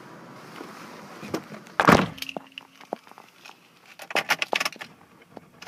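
A single thump about two seconds in, followed by a short low hum, then a quick run of sharp clicks a couple of seconds later, from a car's interior controls and trim being handled.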